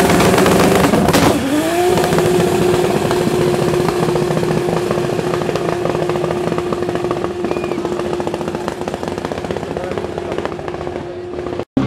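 Drift car's engine held at high, steady revs while the rear tyres spin in a smoky burnout. The engine note rises quickly about a second in, then holds over the hiss of the spinning tyres. It fades a little as the car moves away and cuts off suddenly near the end.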